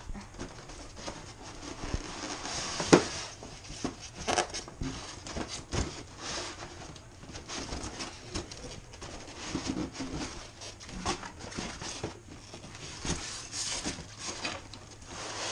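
Packaging being handled: a polystyrene insert and cardboard box rustling, scraping and knocking as they are pulled apart, with one sharp knock about three seconds in.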